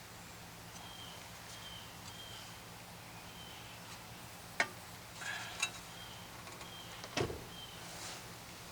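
A few sharp knocks about a second apart, then a heavier knock near the end, as a hammer drives the CV drive axle back through the wheel hub.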